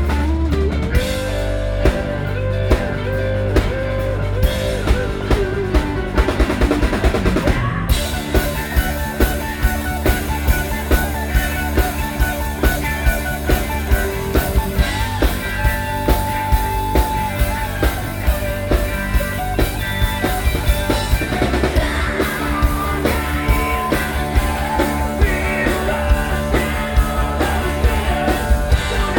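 Rock music from drums and electric guitar: a guitar line with sliding notes over a steady drum beat, then the full band playing louder and denser from about eight seconds in.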